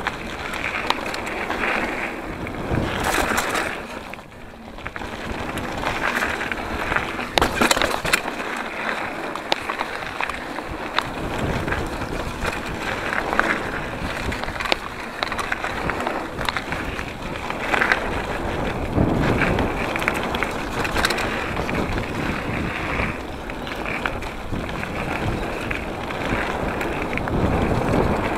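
2014 Giant Trance 3 27.5 mountain bike riding fast down a dirt singletrack: continuous tyre noise on the packed dirt and loose gravel, with frequent rattles and knocks from the bike over bumps and roots. The noise eases briefly about four seconds in.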